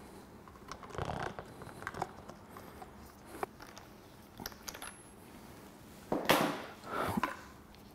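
Scattered light metallic clinks and knocks of hand tools and car parts being handled during suspension work. Near the end come two louder scraping rushes, the second ending in a knock.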